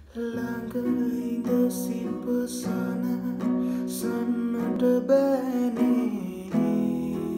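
Acoustic guitar playing a song's opening on its own, chords plucked so that each rings on into the next.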